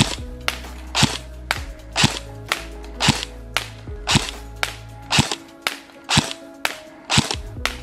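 Jing Gong M4 CQBR airsoft electric gun firing on semi-auto with a 7.4 V LiPo battery: sharp single shots in a steady run, about two a second.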